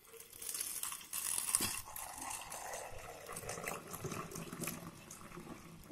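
Soapy liquid pouring in a thin stream into the neck of a bottle, splashing and gurgling as it fills; the stream tails off toward the end.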